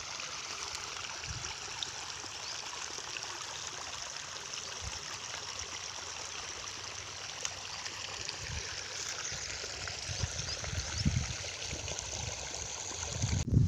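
Steady trickling of flowing water, with a few soft low thumps.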